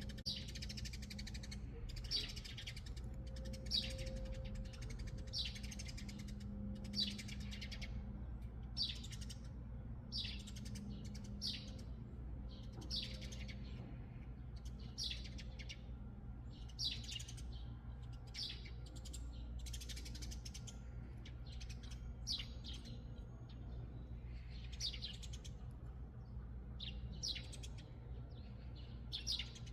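A sparrow chirping: short, high single chirps repeated about once or twice a second, over a steady low hum.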